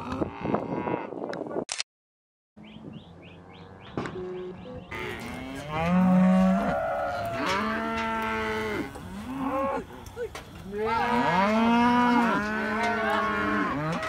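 Penned calves and cattle bawling, many calls overlapping and sliding up and down in pitch, busiest in the second half.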